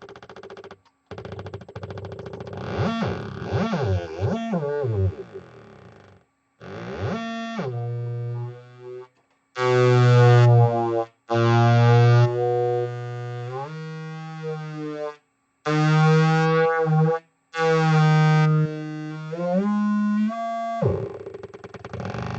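Homemade single-oscillator synthesizer buzzing through PC speakers and a subwoofer. For the first few seconds its pitch sweeps up and down in wavering glides. After that it plays held buzzy notes that jump between pitches, broken by several short silences.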